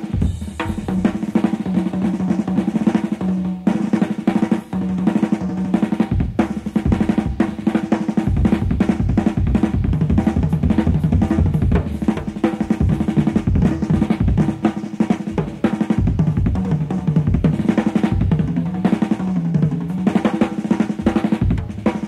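Jazz drum kit played busily, with rapid snare rolls, rimshots and bass drum strokes over held low notes, heard off an old cassette recording of an FM broadcast.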